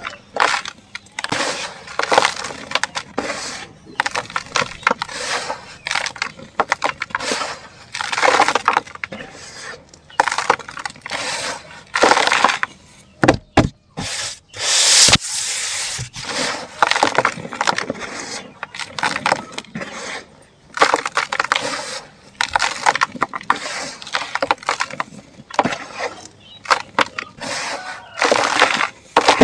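Dried sand, dirt and cement clumps crumbling and breaking apart: a string of irregular crunches and cracks, with one longer gritty rush about halfway through.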